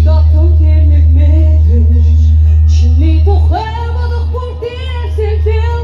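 Live music through a concert sound system: a woman singing over a loud, steady bass. About three and a half seconds in the bass drops back and the voice comes forward.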